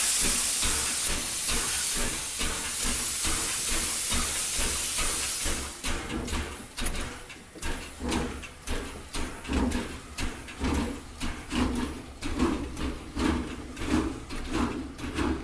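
Steam locomotive letting off a long loud hiss of steam, which gives way about six seconds in to a steady chuffing of about two beats a second as it gets under way.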